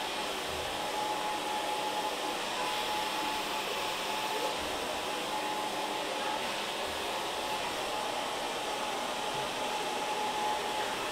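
Hand-held hair dryer blowing steadily while hair is blow-dried: an even rush of air with a thin steady whine under it.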